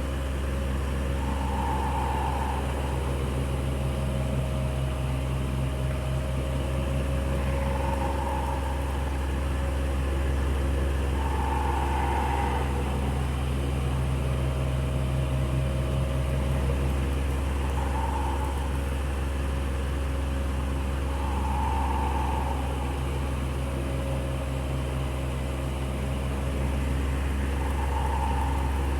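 Electric fan running steadily: a low motor hum with a brief higher tone swelling and fading every few seconds.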